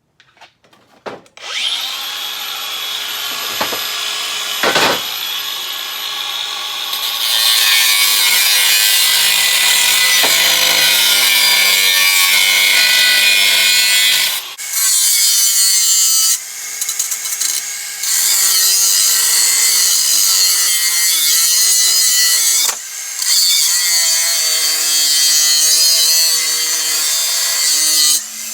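Handheld power tool cutting through the metal of a truck's cab hinge. It spins up with a high whine about a second and a half in, then cuts under load, stopping briefly and restarting several times.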